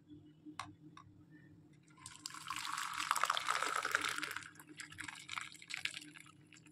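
Tea poured in a stream into a ceramic cup, starting about two seconds in, loudest for a couple of seconds as the cup fills and froths, then tapering off into splashes and dribbles.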